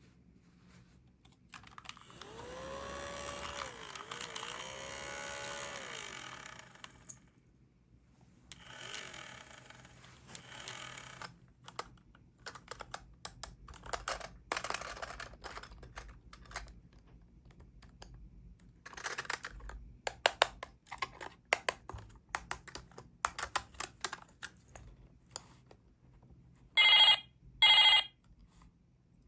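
Toy pieces being handled, with rustling and a drawn-out squeal with a wavering pitch in the first seconds, then scattered small clicks and taps. Near the end come two short, loud electronic rings about a second apart, a toy's ring tone.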